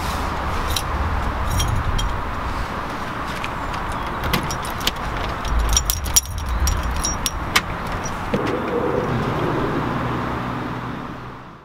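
A bunch of keys jangling and clicking as a key is worked in a front-door lock and the door handle is turned, the clicks clustered around the middle, over a steady outdoor background with a low rumble. The sound fades out near the end.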